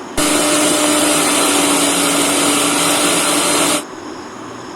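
Electric mixer grinder running, grinding roasted coconut into a paste: a loud steady whirr with a constant motor hum that starts suddenly just after the start and cuts off sharply after about three and a half seconds.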